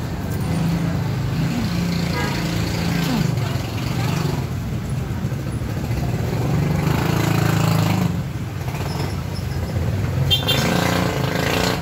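Road traffic going by, mostly motorcycle engines running with a steady low hum that swells twice, with faint background voices.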